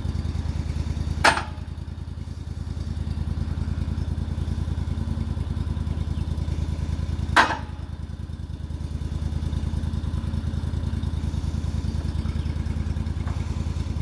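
Portable sawmill's engine running steadily. Two sharp knocks sound over it, about six seconds apart, while the log is being turned and set on the carriage.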